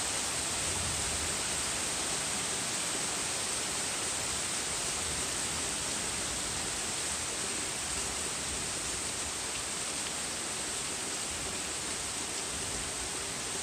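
Heavy rain pouring steadily onto leafy trees and a grass lawn, an even, unbroken wash of noise.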